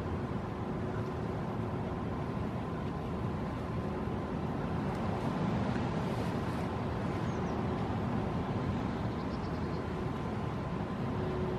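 Steady low rumble of wind buffeting the microphone, with a faint steady hum.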